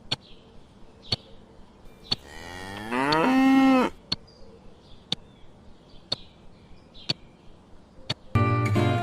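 A cow mooing once: a long call that rises in pitch and then holds steady, about two seconds in, over faint ticks about once a second. Strummed guitar music comes back in near the end.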